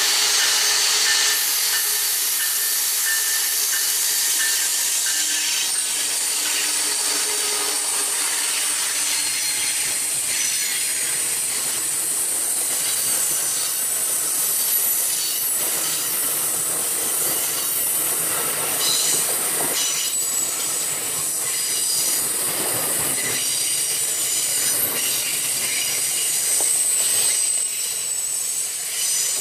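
Amtrak passenger train led by a Siemens SC-44 Charger diesel locomotive passing close by on a curve. The wheels squeal high and steadily against the rails, with scattered clicks from the wheels over the track. Lower steady tones in the first several seconds fade as the locomotive goes by.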